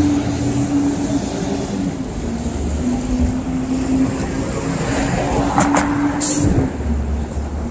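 Road traffic: motor vehicles running and passing, with a steady engine hum and a short hiss a little after six seconds in.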